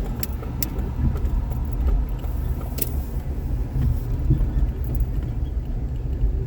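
Car driving on city streets heard from inside the cabin: a steady low road and engine rumble, with a few faint clicks or rattles early on.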